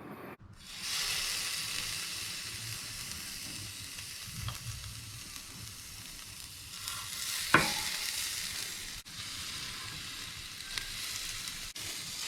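Marinated lamb cutlets sizzling on a hot barbecue, a steady frying hiss, with one sharp knock in the middle, likely tongs against the grill.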